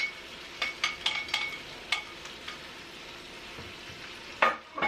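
Chicken and vegetables sizzling in a hot pot while being stirred, a utensil clinking against the pot again and again with a short ring, and a louder clatter near the end.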